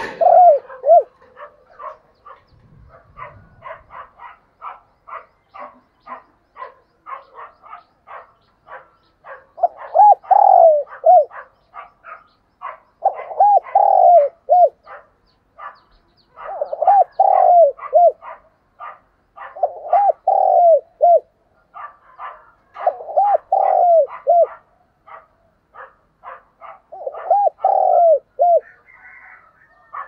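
Spotted dove cooing in phrases of three or four notes: one phrase at the start, then after a long gap one about every three seconds. Faint, fast, regular ticks or chirps run underneath.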